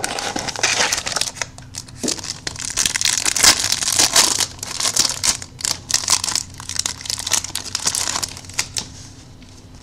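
Foil wrapper of an Absolute Memorabilia football card pack being torn open and crinkled by hand: a dense run of crackles that thins out in the last second or so as the cards come out.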